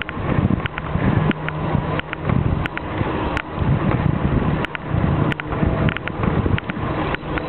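Wind buffeting the microphone of a moving camera, with a continuous low rumble and scattered sharp clicks and rattles.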